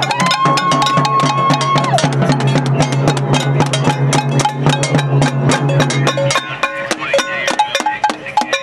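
Noise-parade din from a crowd of protesters: drums and struck objects banged rapidly and unevenly, over a steady low drone that stops about six seconds in.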